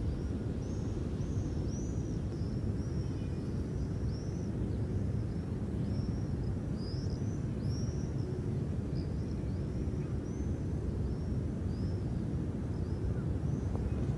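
Outdoor ambience: a steady low rumble with a small bird chirping over and over, short arching chirps about one or two a second.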